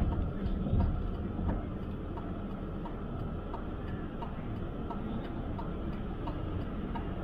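Inside a moving car: a steady low rumble of engine and tyres, with a light regular ticking about twice a second over it.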